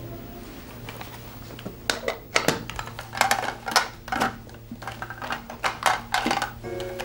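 Irregular clatter and clinks of hard objects being handled, starting about two seconds in, over a low steady hum.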